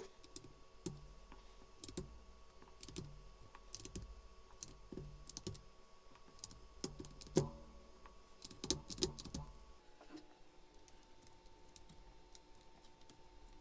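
Faint, irregular plastic clicks and taps of PBT keycaps being pulled off and pressed onto a Discipline 65 mechanical keyboard, with a few louder clicks about two thirds of the way in, thinning out near the end.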